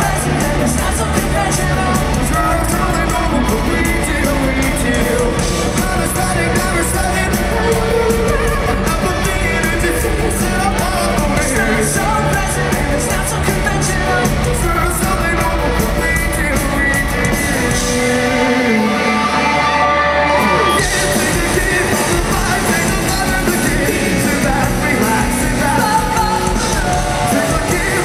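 Rock band playing live, with a male lead singer singing into a handheld microphone over the full band, heard loud from within the audience. About eighteen seconds in, the drums and bass drop out for a couple of seconds, leaving the voice and upper instruments, then come back in.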